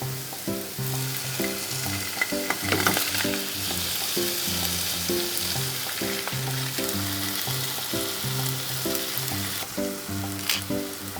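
Food frying in hot oil with a steady sizzle, under background music with a light melody of short notes.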